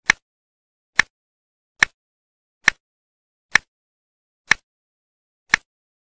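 Seven sharp clicks, about one a second, with silence between: a sound effect keeping time with end-card lettering as it appears.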